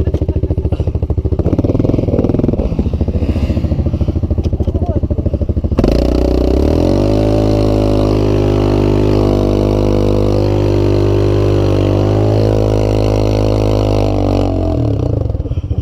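Yamaha Grizzly ATV engine running at low, choppy revs, then opened up suddenly about six seconds in and held at high, steady revs for about eight seconds. It drops back to low revs near the end.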